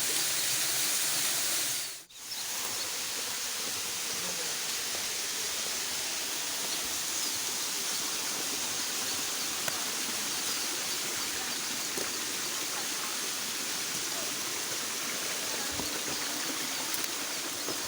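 Steady rush of water from a waterfall and its stream. The sound cuts out for a moment about two seconds in, then resumes.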